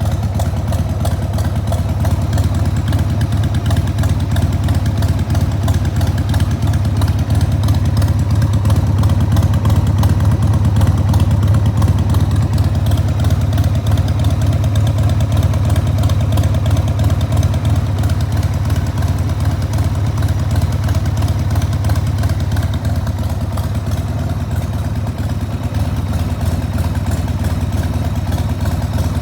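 Harley-Davidson 1994 XLH1200 Sportster's 1200 cc Evolution V-twin idling through Screamin' Eagle turnout silencers, a steady loping exhaust beat. It swells a little in level around the middle and settles back.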